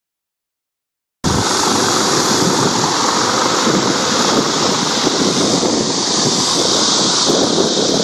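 Dead silence for just over a second, then steady outdoor ambient noise sets in suddenly: an even hiss with a rough low rumble, like wind on the microphone and moving water.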